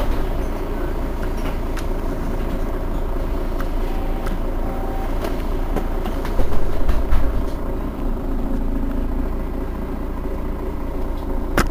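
Mercedes-Benz Citaro Facelift city bus engine idling with a steady low rumble. It briefly gets louder about six and a half seconds in.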